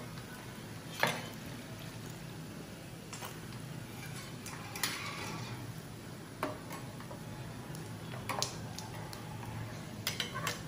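Fish pieces deep-frying in a wok of oil with a steady sizzle, while a stainless-steel ladle and spatula clink against the pan and each other several times as the pieces are turned, the loudest clink about a second in.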